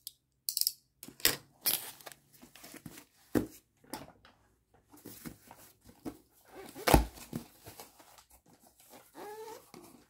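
Hands tearing open a mailed package: irregular rips and crinkles of the packaging, with one heavy thump about seven seconds in.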